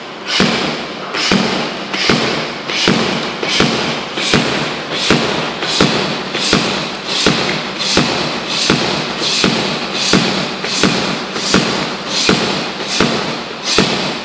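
A rubber medicine ball thrown down hard against a hard floor and caught, over and over: a rhythmic series of thuds, about one every 0.8 seconds, each with a short echo from the hall.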